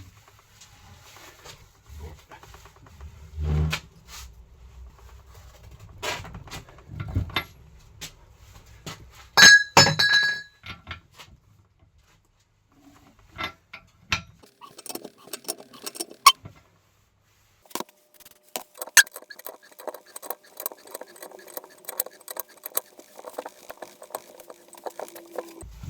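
Metal tools and car parts clinking and knocking during hand work on a car's front suspension, with a loud ringing metal clink about ten seconds in and a long run of rapid clicks in the last seven seconds.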